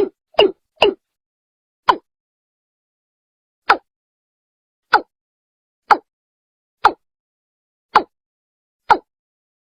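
Watercock calling: three quick short notes at the start, then single short notes spaced about a second apart. It is a clean recording of the bird's call, used as a lure to draw watercocks in.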